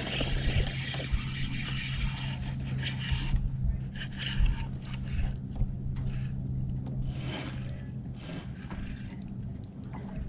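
Spinning reel being cranked while a fish is fought on a bent rod: a steady rasping in the first three seconds, then short scattered scrapes of the reel and line. A steady low hum runs underneath.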